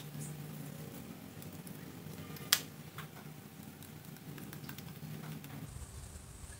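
Metal parts of a vintage Miller Falls hand drill being handled while its chuck is turned off the threaded spindle: a few light metal clicks, with one sharp click about two and a half seconds in. A faint steady low hum runs underneath.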